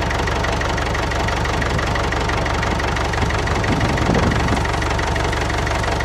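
Tractor engine idling with a rapid, even beat, steady throughout.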